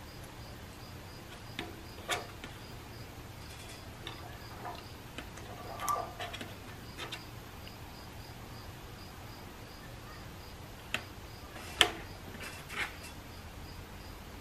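Scattered light clicks and taps of small metal transmission valve-body parts being handled on a workbench, the sharpest near the end.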